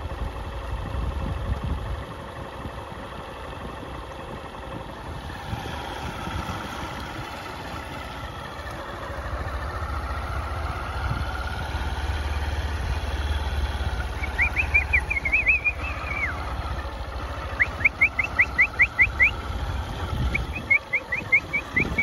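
An engine running steadily at low revs. Three short runs of rapid, repeated high chirps come in the second half.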